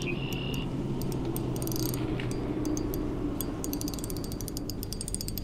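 Ultralight fishing reel clicking and ratcheting as a hooked fish, a channel catfish, runs and pulls line against the drag. The clicks come quickly and irregularly, growing denser toward the end.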